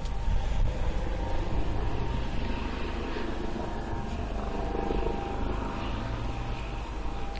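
Steady low rumble of outdoor background noise with a faint hum.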